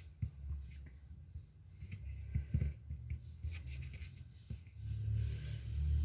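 Fingers pressing and rubbing a lump of cold porcelain (biscuit) clay to flatten and shape it, with soft scuffing, a few light clicks and a low handling rumble that grows louder near the end.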